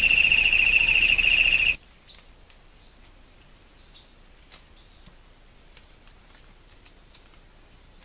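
A loud, steady, high-pitched buzz with a fast ripple that cuts off abruptly about two seconds in. After that there are only faint, scattered ticks and rustles in dry leaf litter, where tinamous are foraging.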